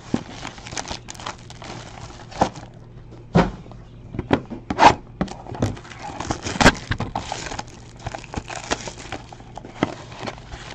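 Foil trading-card pack wrapper crinkling and a cardboard box and cards being handled: irregular rustles, crackles and sharp clicks, the loudest a few seconds in.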